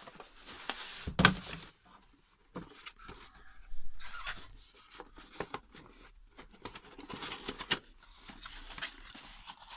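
Cardboard packaging being handled: a folded kraft-card inner pack slid out of a box and its flaps opened, with scattered rustling and scraping and a sharp knock about a second in.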